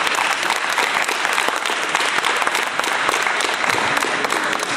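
Crowd of spectators applauding, many hands clapping in a dense, steady patter.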